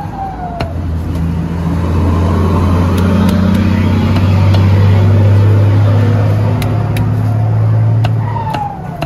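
A vehicle engine's steady low drone that swells for several seconds and fades near the end. Over it come a handful of sharp knocks of a cleaver chopping grilled chicken on a wooden chopping board.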